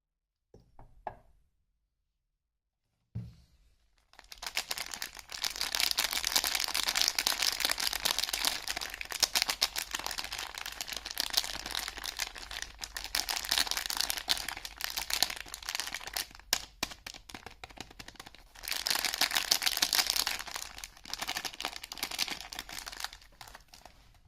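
Soap packaging being torn open and crinkled as a bar of soap is unwrapped: a short knock, then a long stretch of dense crackling and tearing.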